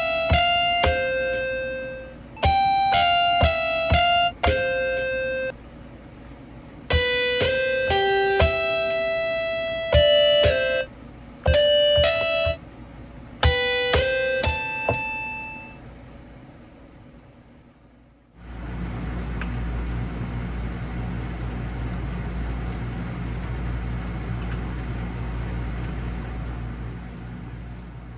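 Background music: a slow melody of plucked, guitar-like single notes and short chords that dies away about sixteen seconds in. About two seconds later a steady hiss with a low hum starts suddenly.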